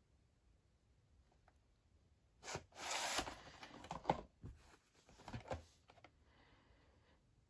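A VHS cassette slid out of its cardboard sleeve: a scraping rustle of plastic against cardboard about two and a half seconds in, then a few light plastic knocks and handling sounds as the tape is lifted out.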